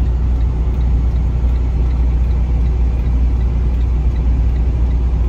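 Semi truck's diesel engine idling, a steady low rumble heard inside the cab.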